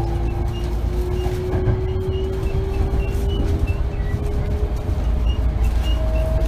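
Running sound inside a Hankyu 8000 series electric commuter car: a steady low rumble from wheels and track, with a motor whine slowly rising in pitch as the train picks up speed. The whine fades about five seconds in, and a higher tone comes in near the end.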